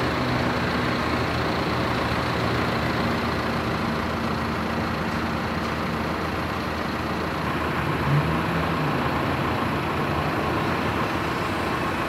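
A heavy engine running steadily under a broad rush of street noise, with a short low hum and a small rise in loudness about eight seconds in.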